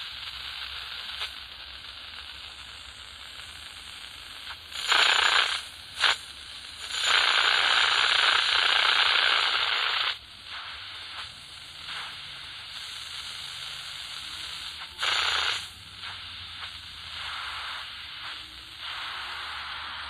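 Atlanfa portable world-band radio's speaker hissing with static, not tuned to any station. Several much louder bursts of rushing noise come and go; the longest lasts about three seconds near the middle.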